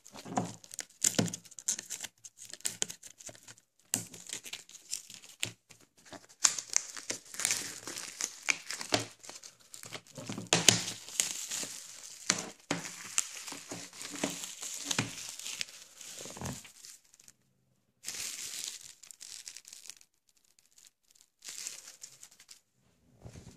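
Packaging crinkling and tearing as it is pulled off a steelbook Blu-ray case by hand, with sharp clicks of handling. The crinkling comes in bursts, busiest through the middle and pausing briefly near the end.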